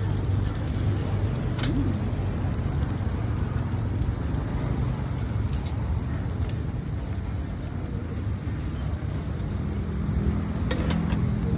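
Coconut-milk batter sizzling in a hot cast-iron khanom krok pan over a steady low rumble of road traffic, with a few light metal clinks: one about two seconds in and a couple near the end.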